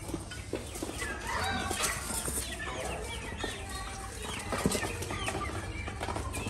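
A flock of young chickens clucking and cheeping as they crowd a feed dish, many short high calls overlapping one another.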